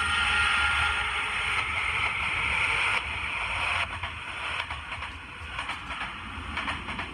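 Electric commuter train running through the station, a loud steady rush of wheel and running noise that falls off sharply about three to four seconds in, followed by a quieter rumble with scattered clicks from the wheels on the track.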